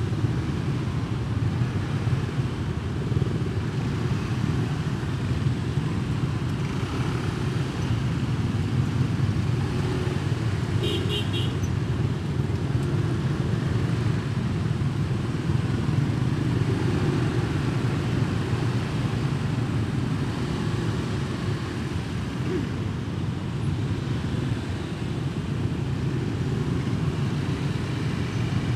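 Steady low engine and road noise of dense motorbike traffic, heard from a motorbike riding in it. A short, high horn beep sounds about eleven seconds in.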